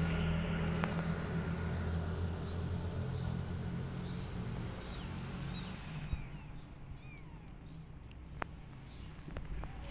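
Outdoor ambience. A low, steady engine-like hum fades out about six seconds in, while faint, short, high chirps come and go, with a few soft clicks near the end.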